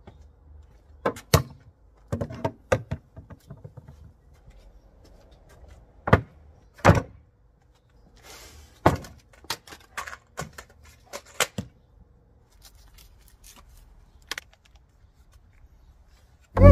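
MDF panels and cordless power tools being set down and handled on a worktable: a scatter of separate knocks and clunks, some in quick pairs.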